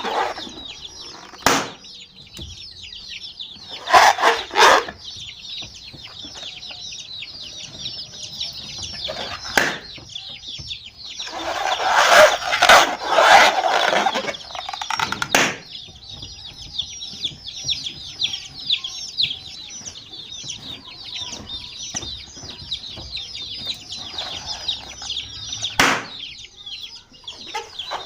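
A brood of baby chicks peeping continuously in many overlapping high chirps. There are louder bursts of calls about four seconds in and again around twelve to fourteen seconds, and a few sharp knocks.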